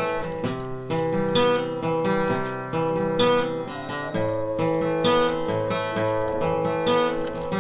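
Music on a strummed acoustic guitar, a full strum falling about every two seconds over a long held note.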